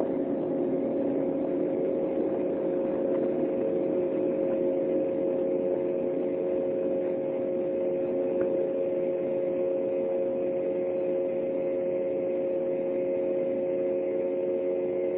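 Cabin noise of an Embraer 195's twin GE CF34-10E turbofan engines at takeoff thrust: a steady rush of noise with several steady droning tones, through the end of the takeoff run, liftoff and initial climb.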